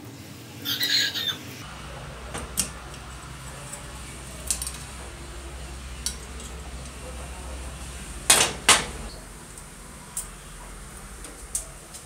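Metal parts of an old Royal typewriter's carriage and linkage clinking and clicking as they are handled and taken apart. A short metallic rattle comes about a second in, then scattered single clicks, and two sharp knocks close together past the middle.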